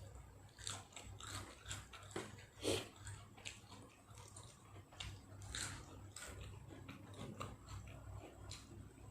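A person eating close to the microphone: irregular bites and chewing with crisp crunches, the loudest about two and a half seconds in.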